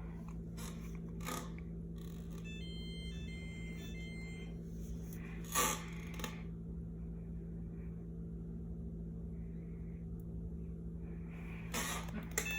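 Whirlpool dishwasher's control panel giving a short run of electronic beeps a couple of seconds in, over a steady low machine hum, with a few sharp clicks. The dishwasher is throwing its F8/E4 overfill error even though the tub is empty.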